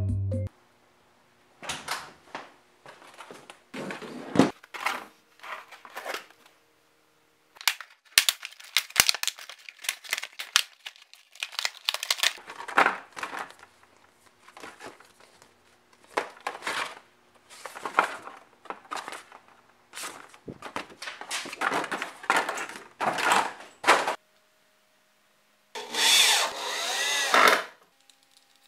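Plastic and cardboard packaging of a Dremel flex shaft being handled and opened: irregular crinkling and crackling in bouts, with short pauses. Near the end comes a dense rasping rub lasting about a second and a half.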